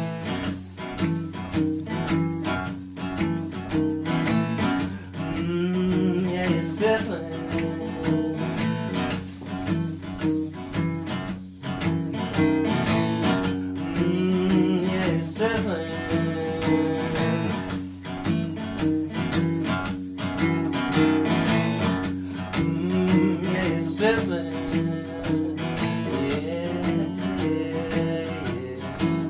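Live acoustic guitar strummed in a steady rhythm through an instrumental passage of the song, with no singing.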